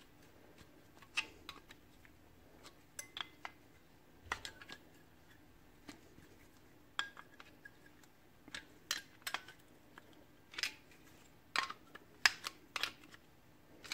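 Scattered metallic clicks and clinks of hand tools working on a Toyota 2GR-FE VVT-i cam phaser while its camshaft-position signal disc is being pried off. A few of the knocks ring briefly.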